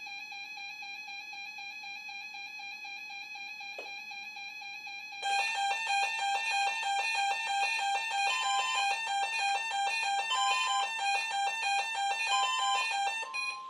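Weather radio alert alarm: a steady electronic tone for about five seconds, then a louder run of rapid beeps with a higher note breaking in about every two seconds. Near the end the beeping gives way to a steady, slightly higher tone.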